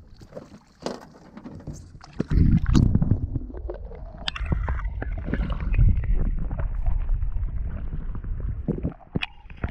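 Muffled rumble and gurgling of river water heard with the camera plunged underwater, starting about two seconds in, with a thin tone climbing in steps shortly after.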